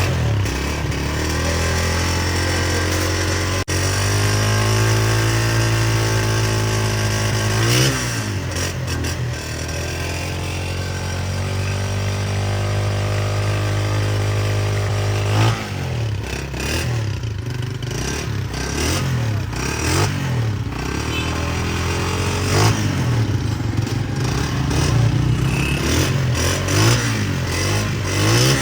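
Honda CG125 single-cylinder four-stroke motorcycle engine idling steadily, with a brief rev about eight seconds in. From about halfway through it is revved repeatedly in short throttle blips, each rising and falling.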